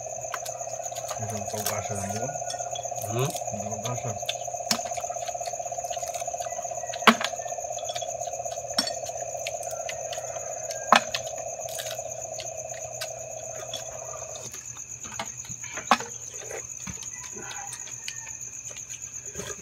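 Crickets chirring in a steady high-pitched trill, with a lower steady hum under it that stops about three-quarters of the way through. Scattered sharp clicks and knocks of crab shells and dishes being handled at a meal, the loudest two near the middle.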